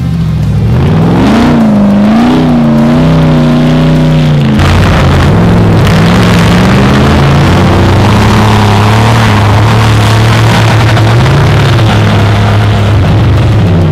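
Off-road race vehicle engine revving hard under load, its pitch swinging up and down as it climbs. About four and a half seconds in the sound changes abruptly to a steadier, high-revving run.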